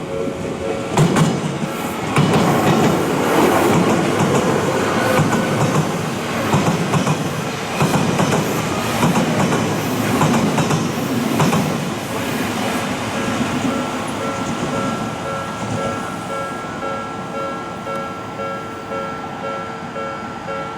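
An Odakyu 3000-series electric train passes over the level crossing, its wheels rumbling and clacking over the rail joints, then fading away after about twelve seconds. The crossing bell dings steadily before the train arrives about a second in and again as it fades.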